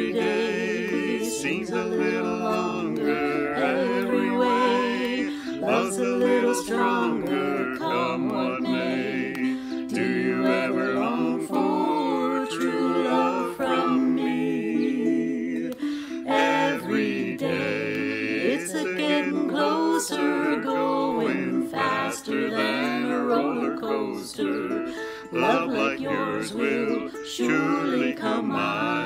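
Ukulele strumming with several voices singing along. It is a small group mixed from separate home recordings into one virtual choir.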